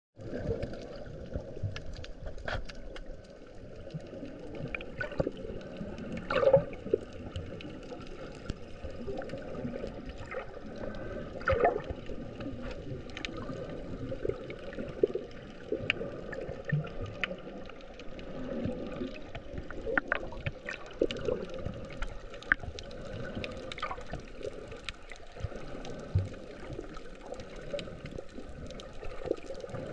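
Underwater sound just below the sea surface: a muffled, steady water rush with many scattered clicks and pops.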